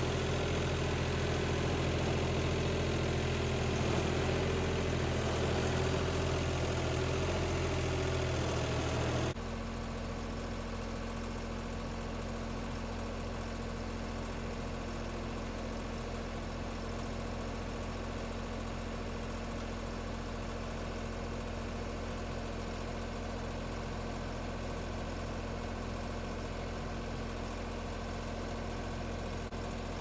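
Kioti compact tractor's diesel engine running steadily with its front loader raised under load. About nine seconds in, the sound drops abruptly to a quieter steady run.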